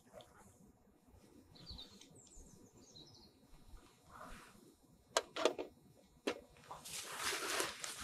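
Faint bird chirps in the first few seconds, then a few sharp clicks as the small metal handle of a manual coffee grinder is handled and set down, and a rustle of plastic packaging near the end.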